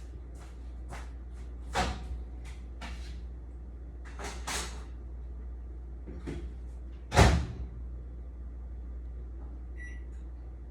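Clicks and knocks of handling at a microwave oven, with its door shut with a thud about seven seconds in, then a few short keypad beeps near the end, over a steady low hum.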